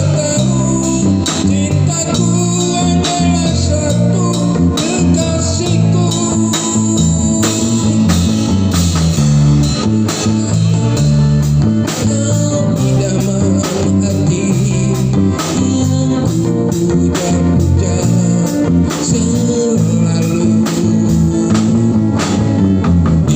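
Music with guitar, bass and drums, with a steady beat, played loud over a sound system's loudspeakers.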